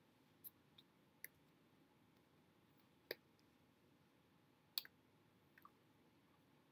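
Near silence: room tone with about six faint, scattered clicks from a person signing, the strongest about three and five seconds in.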